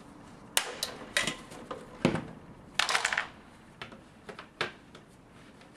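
A series of sharp clicks and knocks from hard plastic wall track being handled and test-fitted, with a quick rattling run of clicks about three seconds in and lighter taps near the end.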